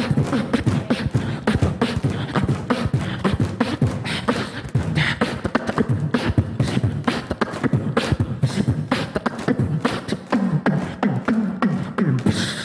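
Live beatboxing through a handheld microphone: a fast, steady stream of mouth-made kick, snare and hi-hat sounds, with hummed bass notes toward the end. Right at the end a sudden loud hiss from a stage pyrotechnic burst breaks in.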